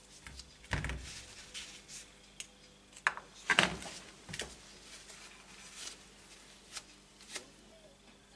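Handling noises at a workbench: a rag rubbing on small metal motorcycle parts, and a few knocks and clicks as a pick, a footpeg and an aluminium footrest bracket are put down and picked up, the loudest a little past three seconds in.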